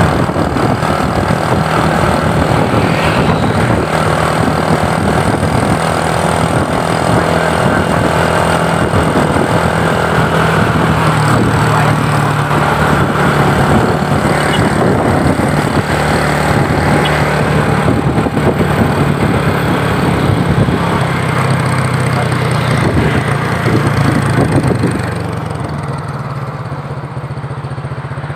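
A motor vehicle engine running steadily under dense road and wind noise, with a low hum that shifts in pitch now and then. It drops in level a few seconds before the end.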